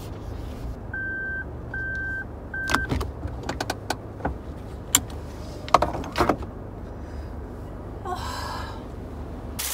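Daihatsu Move Custom's small engine idling in the cabin, with three short beeps from the car about a second in. Then come scattered clicks and knocks of things being handled on the seats, and a brief rustle near the end.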